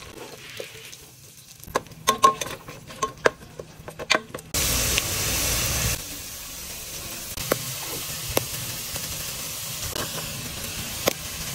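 Food frying in hot oil in a pan. A few sharp clicks come first, then a loud sizzle starts suddenly as the chopped garlic goes into the oil. After a second and a half it eases to a steady frying sizzle, with an occasional click of a utensil.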